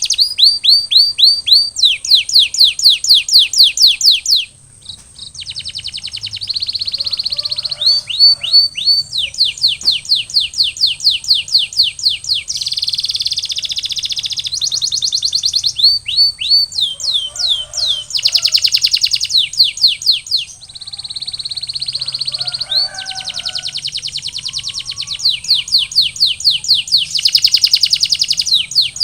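Male canary singing: long tours of rapidly repeated downward-sweeping whistled notes, one phrase after another, with short breaks about four seconds in and again about twenty seconds in.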